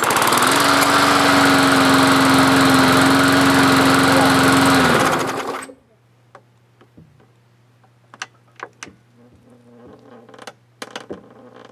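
Small lawn mower engine catching and running steadily for about five seconds, then winding down and stopping, followed by a few faint clicks.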